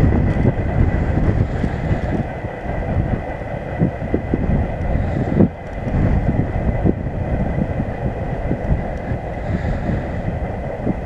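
Long train rolling along a broad-gauge line at a distance, a steady low rumble mixed with wind buffeting the microphone.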